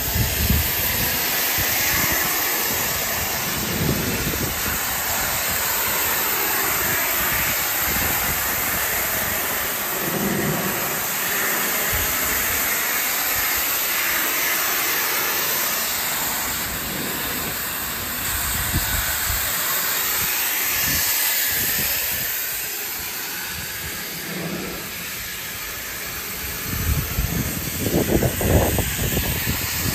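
Pressure washer spraying, a steady hiss of water jet on wood while wood restorer is rinsed off the boards. A few louder low bumps come near the end.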